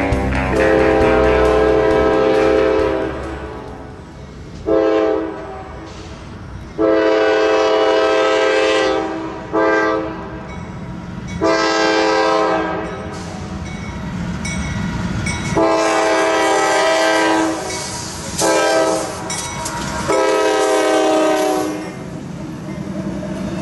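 CSX locomotive 415's Nathan K5LA five-chime air horn sounding a series of eight long and short blasts for the grade crossing, over the steady rumble of the approaching intermodal train. Near the end the horn stops, leaving the locomotive and wheels rolling by.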